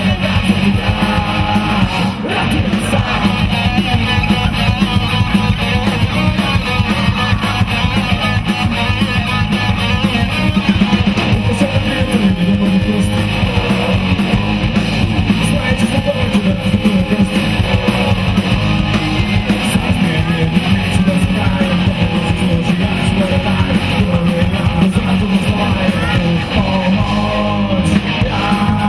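Live rock band playing: electric guitars over bass guitar and drums, loud and unbroken.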